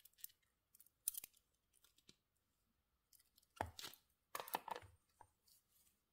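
Faint handling noise from an ATOWAK Spaceship watch, its rubber strap and a cloth glove: a few light clicks, then two short bursts of rustling and scraping past the middle.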